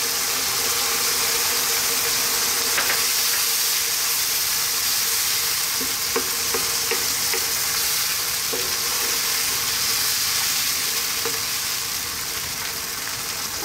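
Tomato sauce sizzling steadily in a nonstick wok on high heat while a wooden spatula stirs tomato paste through it.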